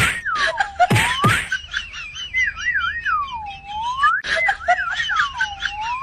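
Whistling that swoops down and back up in pitch again and again, with quick warbling trills and a few sharp clicks.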